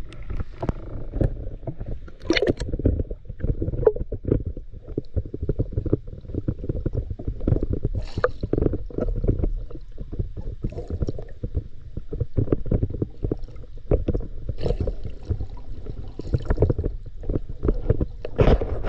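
Muffled, irregular rumbling and sloshing of water around the camera underwater as the diver swims, with many small knocks and swishes.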